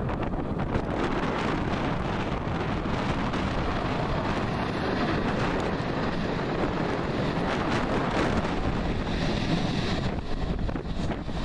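Electric multiple-unit passenger train running past close by on curved track, its steady rolling noise mixed with wind buffeting the microphone.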